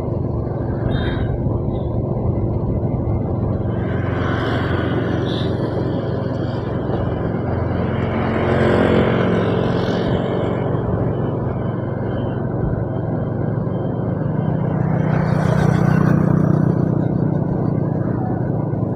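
Steady engine and road noise of a vehicle travelling along a road, with two louder swells, one about halfway through and one near the end.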